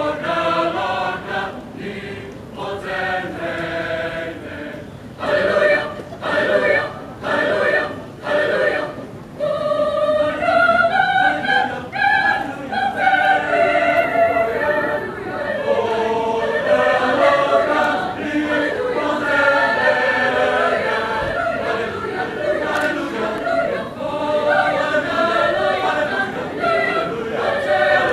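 Mixed choir singing in parts: short detached phrases for about the first nine seconds, then longer held chords.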